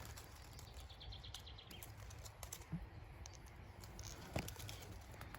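Quiet outdoor ambience: a few light clicks and faint rustling, with faint birdsong in the background.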